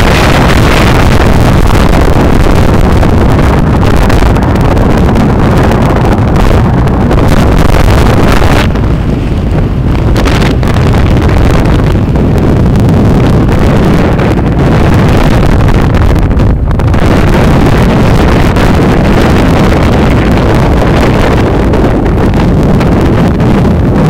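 Heavy wind noise buffeting the microphone of a camera carried in a moving vehicle, a continuous loud rush with a strong low rumble. The rush thins briefly about nine seconds in and again around sixteen seconds.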